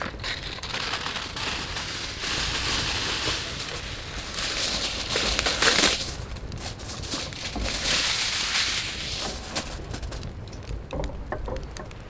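Aluminium foil crinkling and rustling as a long sheet is pulled off the roll and spread flat, in three stretches of noise with quieter gaps between them.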